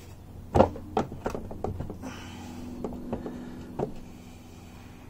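Irregular knocks and clinks on the Yamaha XJ650 engine's crankcase as the stuck case halves are worked apart, the loudest knock just over half a second in and a faint steady hum from about two seconds in.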